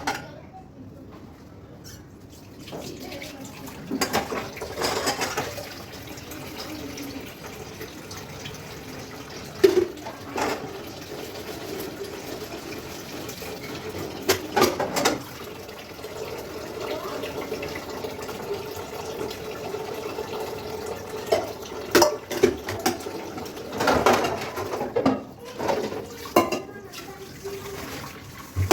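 Kitchen tap running into a sink while dishes are washed, with scattered clinks and knocks of dishes against the sink.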